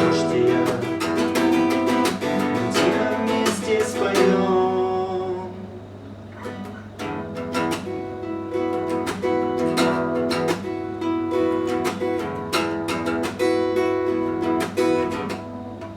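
Acoustic guitar playing the closing bars of a song, picked and strummed chords that thin out briefly about five seconds in, then return and settle on a ringing chord near the end, over a steady low hum.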